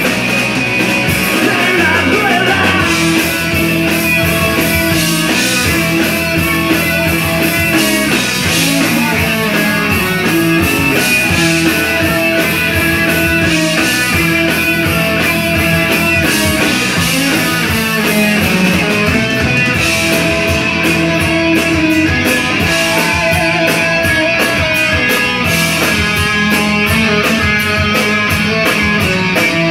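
Live rock band playing: electric guitars, bass guitar and drums, loud and steady, with the drum beat standing out more clearly in the second half.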